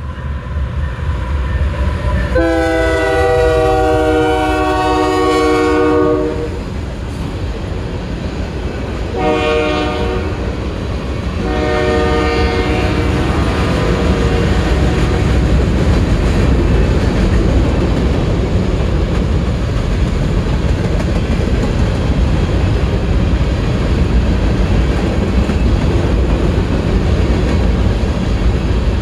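Freight locomotive horn sounding three blasts, the first and longest about four seconds, the next two shorter. Then the steady noise of a manifest freight train's tank cars and covered hoppers rolling past on the rails.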